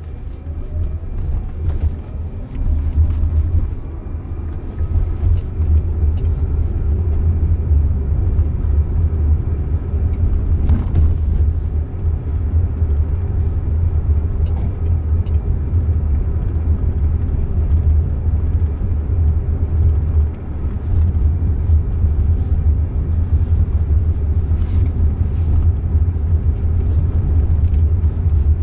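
Road and tyre rumble inside the cabin of a Jaguar I-Pace electric car as it pulls away and cruises. The rumble rises over the first few seconds as the car gathers speed, with a faint rising electric-motor whine, then holds steady.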